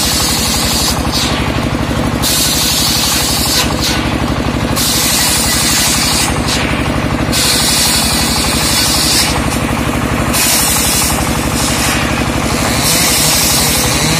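Homemade engine-driven circular saw ripping a rain-tree (trembesi) slab: the engine runs steadily with a fast pulse, and a high rasping hiss from the blade in the wood comes and goes several times as the slab is fed through in stretches of one to two seconds.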